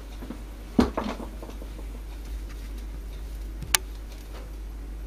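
Light handling sounds: a soft knock about a second in, a few small clicks after it, and one sharp click near four seconds, over a low steady hum.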